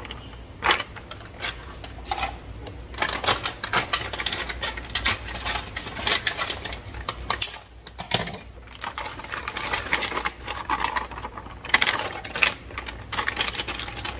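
Frozen stir-fry vegetables crackling and popping in hot avocado oil in a pan: rapid, irregular pops and clicks rather than a steady sizzle.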